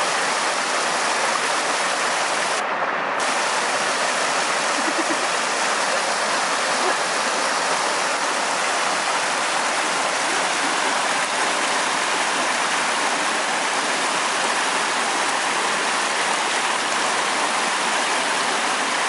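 Waves washing on the shore, a steady rushing of water.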